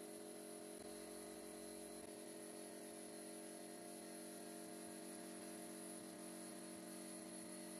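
Sandblast cabinet running while a part is blasted: a steady motor hum with a thin, even high hiss from the air blast.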